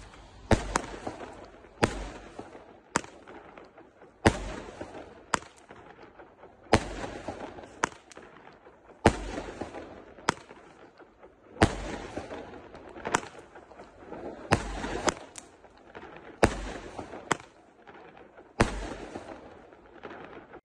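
A series of sharp bangs at irregular intervals, roughly one a second, each trailing off in a short echoing rumble.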